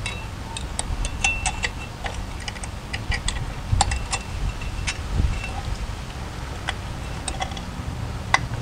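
Irregular light metallic clicks and clinks of steel drum-brake hardware (the adjuster spring and adjuster lever) being worked and hooked into place against the brake shoe.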